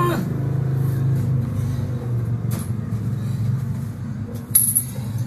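Metal chain clinking sharply about four and a half seconds in as it is gathered up off the floor, over a steady low hum.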